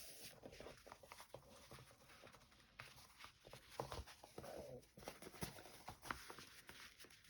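Near silence with faint, scattered taps and rustles of fabric pieces and a paper bag being handled and pressed down onto wet glue.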